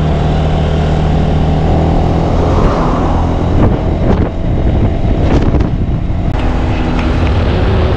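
Motorbike engine running while riding along, with wind on the microphone. A few short knocks come through, and the engine note changes about six seconds in.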